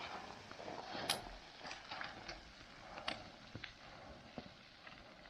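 Irregular clicks and clacks of loose rock shifting and knocking underfoot on a broken talus slope, with a soft noisy background between the knocks.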